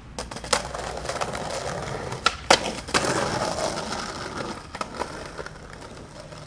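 Skateboard wheels rolling on pavement, with several sharp clacks of the board hitting the ground. The loudest cluster is about two and a half seconds in, and the rolling is quieter near the end.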